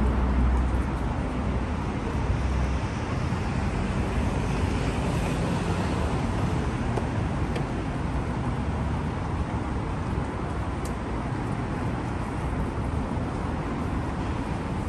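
Road traffic on a city street: a steady wash of passing cars, with a heavier low rumble in the first couple of seconds.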